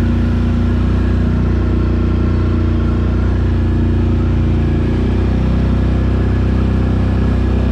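Can-Am Renegade 800 XXC ATV's V-twin engine running at a steady speed while riding, a loud, even engine drone.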